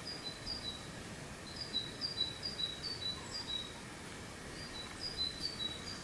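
A small songbird singing short two-note phrases, a higher note then a lower one repeated, in three runs: near the start, from about one and a half to three and a half seconds in, and near the end. A steady outdoor hiss lies underneath.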